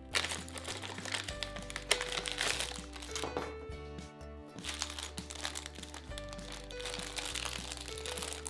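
Background music, with a LEGO minifigure blind bag crinkling with many sharp crackles as it is handled and opened.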